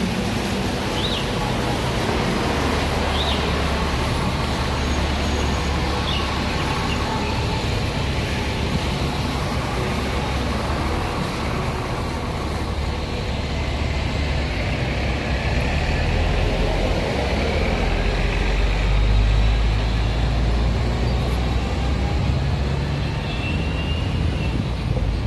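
Road traffic on a busy city street, with buses and cars passing and a steady low rumble that swells about three quarters of the way through.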